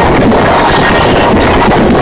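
Car sound system played at competition volume, so loud that the recording overloads into a steady, distorted roar with the music barely recognisable.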